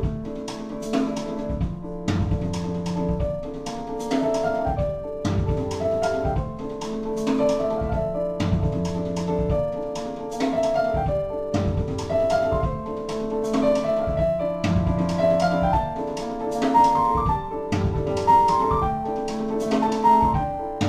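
Music with a steady drum beat under a melody of held notes that step up and down.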